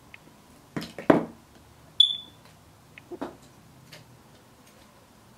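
A few soft knocks and clicks of makeup brushes and a compact being handled, and about two seconds in a single short, high electronic beep.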